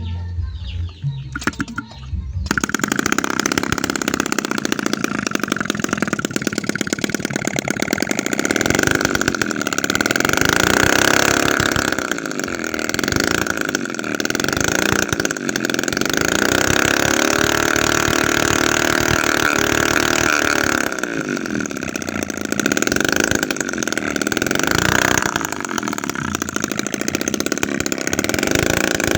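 Small homemade 7 cc two-stroke engine, built from a scrap refrigerator compressor, running at high revs with a buzzing note. It comes in suddenly about two seconds in, and its speed rises and falls repeatedly.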